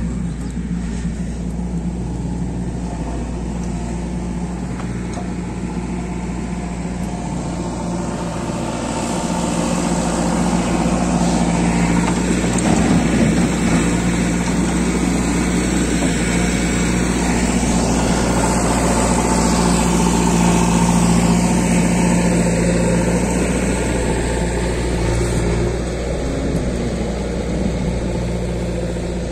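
Diesel engines running steadily: a Sonalika tractor idling, with a JCB backhoe loader working close by. The sound grows louder and rougher through the middle while the loader tips sand into the tractor's trolley.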